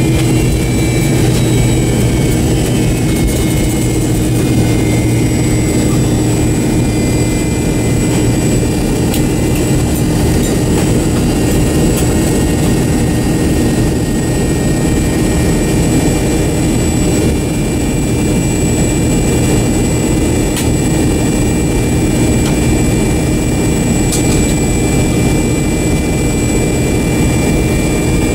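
An MD-88's two rear-mounted Pratt & Whitney JT8D-219 turbofans running steadily at taxi power, heard inside the rear cabin: an even engine roar with a constant low hum and a thin high whine over it.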